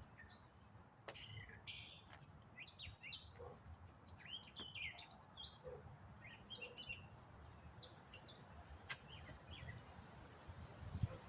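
Small birds chirping, many short high calls one after another, over a low rumble of wind.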